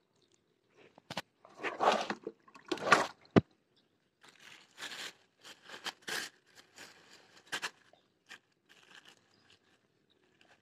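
Crunching and scraping of dry straw and grass being handled, in two louder bursts about two and three seconds in with a sharp click just after, then softer rustles.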